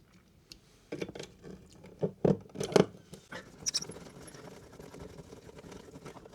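Several sharp clicks and knocks from a plastic wall socket being handled and pressed into its back box, followed by fainter scattered ticks.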